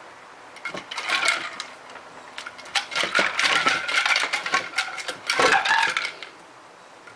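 Ice cubes clinking and rattling against a dog bowl as a German Shepherd puppy noses and paws at them, knocking them about: a short burst about a second in, then a longer run of rapid clatter from about two and a half to six seconds.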